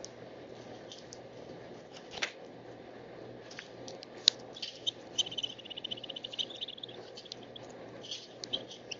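Small birds calling with short, high chips, and a rapid trill of repeated notes lasting about a second and a half, starting about five seconds in.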